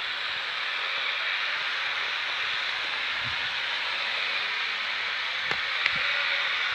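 Steady whirring hiss of a radio-controlled LEGO truck's small electric motor and plastic gears running, with two brief clicks near the end.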